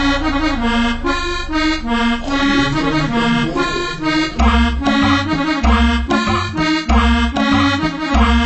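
Instrumental dance music with an accordion-like melody in quick repeated notes; a heavy pulsing bass beat comes in about halfway through.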